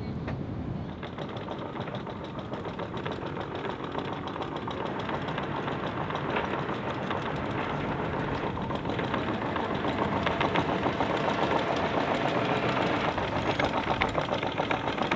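Sailboat's engine running under power with a fast, even knocking rhythm. It gets louder about two thirds of the way through.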